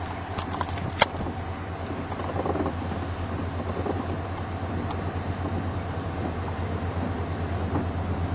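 Roar of a tornado: a steady rushing noise with a low rumble beneath it. One sharp click about a second in.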